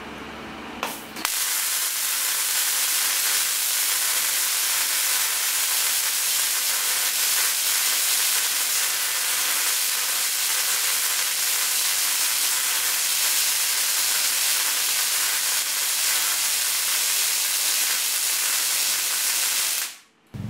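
A short squirt of a spray bottle, then a loud, steady hissing crackle of high-voltage sparks tracking over the salt-wet glass shed of a cap-and-pin suspension insulator, which cuts off suddenly near the end. The saltwater film has made the glass surface conductive, so current creeps across the insulator instead of being held off.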